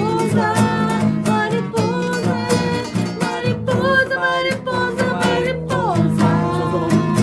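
Acoustic guitar music, strummed and plucked, with a melody line over a steady accompaniment.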